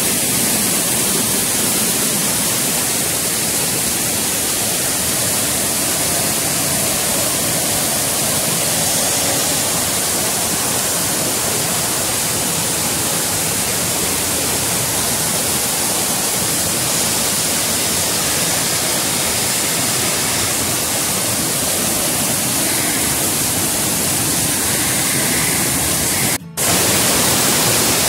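Waterfall cascading over boulders, a loud, steady rush of water running strong with rain-season flow. The sound cuts out for a moment near the end.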